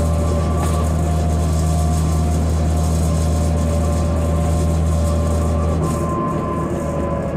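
Interior sound of a 2005 New Flyer D40LF transit bus under way: its Cummins ISL diesel engine drones steadily with a higher whine over it and road noise. About six seconds in, the low drone drops away.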